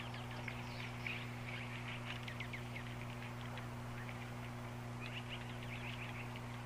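Small birds chirping in many short, quick overlapping calls, over a steady low hum.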